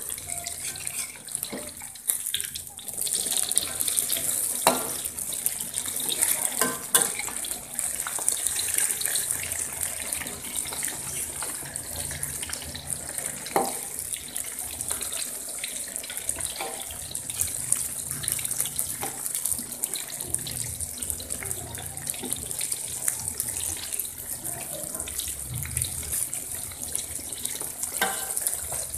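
Flour-battered eggplant slices sizzling steadily in hot oil in a wok, with a metal spatula knocking and scraping against the wok a few times as the slices are turned.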